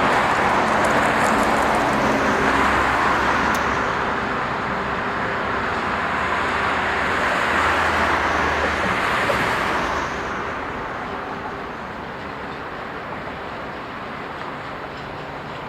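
A heavy vehicle passing close by with a steady rushing noise that eases off about ten seconds in, leaving a quieter background rumble.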